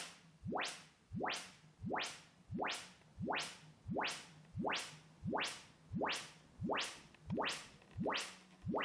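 Short rising sine-sweep test tones from an OmniMic measurement, played through the powered subwoofer being tested. Each sweep climbs from deep bass to high treble in about a third of a second, and the sweeps repeat evenly, about three every two seconds.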